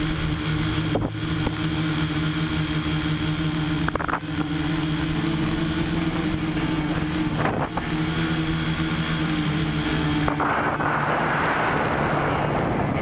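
Tricopter's electric motors and propellers running with a steady hum, heard close up through the onboard camera, dipping briefly about three times as the throttle changes. Near the end a rushing noise joins in.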